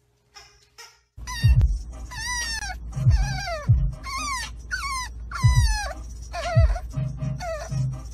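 French bulldog puppy whining again and again from about a second in: a string of high cries, each sliding down in pitch, over the steady low rumble of the car.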